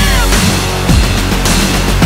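Loud, aggressive music with a heavy, driving beat.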